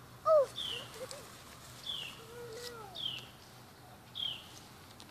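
A bird repeats a short, high, downslurred chirp about once every second. Fainter, lower falling call notes come in near the start and again midway.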